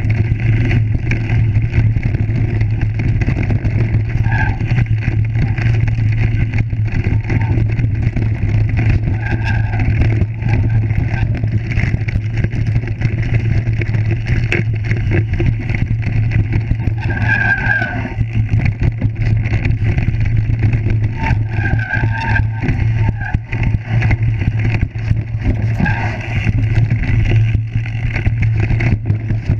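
Mountain bike riding fast down a rough stone trail, heard through a bike-mounted GoPro: a steady low rumble of wind and tyres with constant rattling and clicking from the bike over the stones, and about five short squeals along the way.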